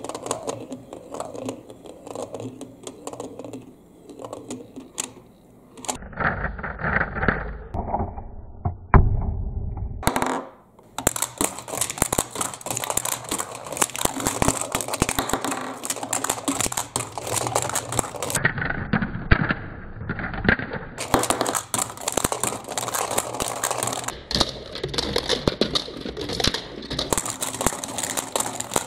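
Balls rolling and rattling through the clear plastic tubes, chutes and funnel bowl of a magnetic-tile marble run, a continuous clatter of small plastic clicks that changes character several times. There is one louder knock about nine seconds in.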